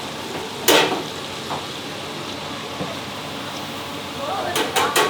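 Beef patties sizzling as they fry in oil, a steady hiss. A loud sharp knock comes about a second in, and three quick knocks near the end.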